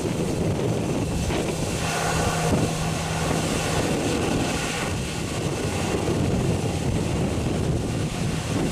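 Airbus A340-300's four CFM56 jet engines at low taxi power: a steady rumble with a whine, mixed with wind buffeting the microphone.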